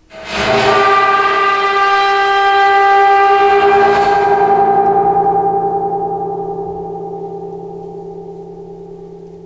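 The metal resonator of a Cristal Baschet instrument set ringing as a sound effect: a loud, dense metallic tone with many overtones that swells for about three seconds, then slowly dies away, the high overtones fading first and the low ones still humming at the end.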